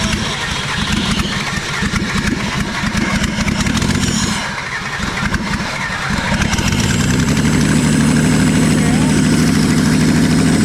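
Holden VT Commodore's 3.8 L Ecotec V6 cranking over with a fast, uneven chatter, a short pause, then catching about six seconds in and settling into a steady run with no exhaust fitted.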